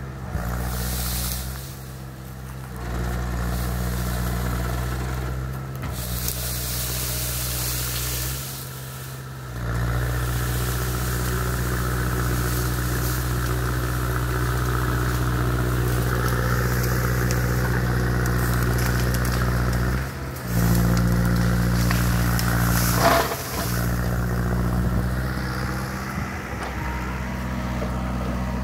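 Case mini excavator's diesel engine running under working load, its level and pitch stepping up and down several times as the hydraulics work. A single sharp crack about three-quarters of the way through.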